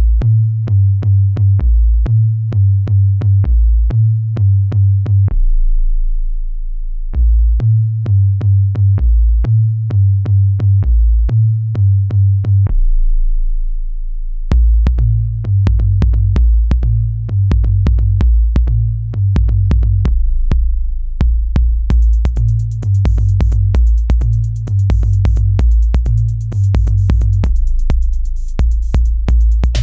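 Electronic bass music starting abruptly: drum-machine beats over very deep sub-bass notes stepping in a repeating pattern, broken twice by a long held low bass note. Fast hi-hat ticks join about two-thirds of the way in.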